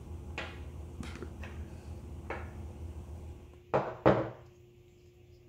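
Metal parts of a 1911-22 .22 LR pistol being field-stripped and set down on a wooden tabletop: a few light clicks, then two louder knocks close together near the end.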